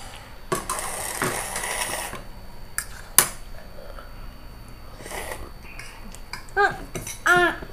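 Cutlery clinking and scraping against ceramic plates and a bowl during a meal, with one sharp clink about three seconds in. Near the end come two short, high-pitched vocal sounds from a small child.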